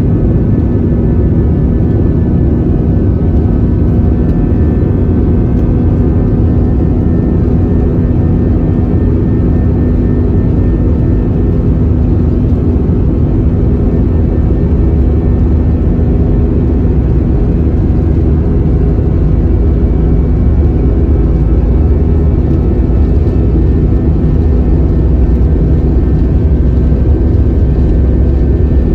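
Jet airliner's engines and rolling noise heard inside the cabin as the plane moves along the ground, a steady loud rumble that grows deeper and stronger about halfway through.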